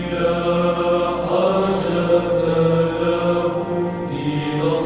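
An Arabic church hymn, chanted slowly and continuously by voice, with a steady low note held beneath the melody.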